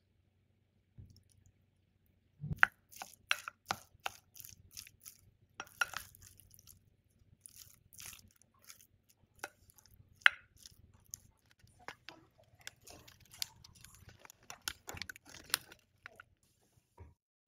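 Food-preparation sounds: an irregular run of sharp utensil taps and crunchy scrapes on food, starting about two and a half seconds in, with two louder knocks.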